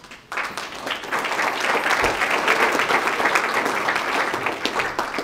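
A roomful of people applauding. It starts suddenly just after the beginning and thins out near the end.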